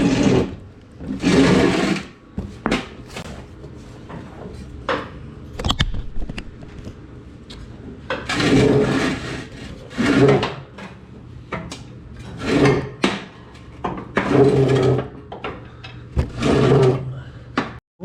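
Steel mower deck being dragged and slid across the floor, scraping and grinding in about half a dozen separate pushes, with a few sharp knocks between them.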